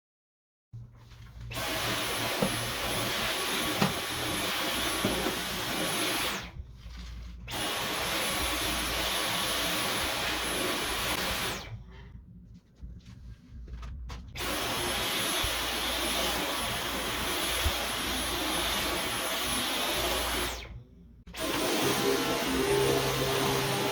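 Dyson V11 Pro cordless stick vacuum running, a steady rush of suction with a thin high whine from the motor. It starts about a second in and drops out briefly three times before starting again.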